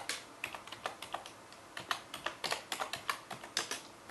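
Typing on a computer keyboard: a run of quick, uneven key clicks, several a second, with brief pauses between bursts.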